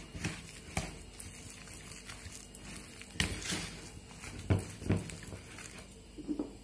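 A spoon stirring thick semolina-and-flour batter in a bowl: a handful of soft, irregular squelches and knocks of the spoon against the bowl.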